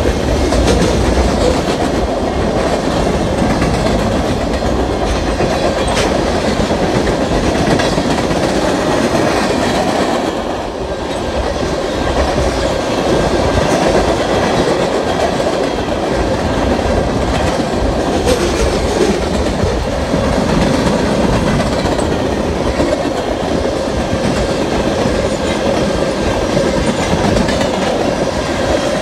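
Freight train of boxcars and tank cars rolling past close by: a steady rumble and clatter of steel wheels on the rails, dipping briefly about eleven seconds in.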